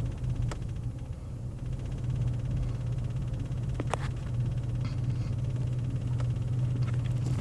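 2003 Ford F-150 engine idling with a steady low hum that dips and comes back up about two seconds in, with a few faint ticks. The idle hunts up and down and the cold air intake makes a weird noise at idle; the truck logs code P0171, bank 1 running lean.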